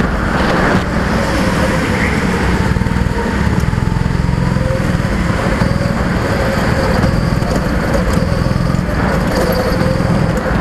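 Go-kart engines running hard during laps, heard from on board a kart with another kart just ahead. The engine note holds steady, its pitch wavering slightly up and down through the corners.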